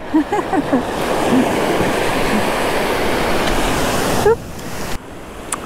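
Surf washing up over sand at the water's edge: a rush of a wave that swells about a second in and falls away sharply just after four seconds.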